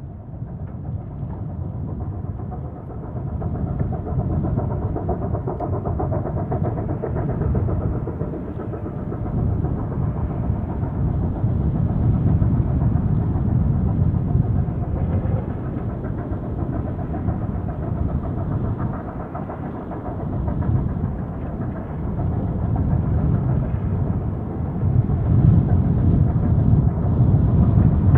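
JS-class 2-8-2 steam locomotive working hard, pushing a heavy spoil train up a steep gradient: a continuous, rapid exhaust beat that grows louder through the clip.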